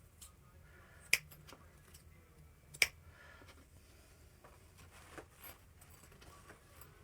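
Two sharp clicks about a second and a half apart, followed by a few fainter taps, as small items are handled and set aside.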